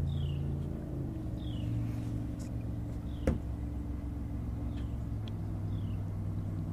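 A low, steady engine drone that cuts off suddenly near the end. Over it come short high falling chirps every second or so, and a single sharp knock about three seconds in.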